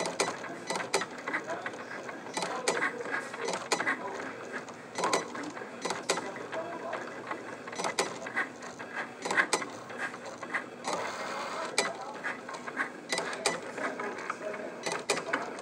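Cricut Explore Air 2 cutting machine drawing with a fine-point pen on cardstock: its motors run steadily as the pen carriage and rollers move, with frequent sharp clicks at irregular intervals.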